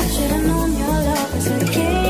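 Music with a strong bass line and beat, a melody line gliding over it: a pop song playing.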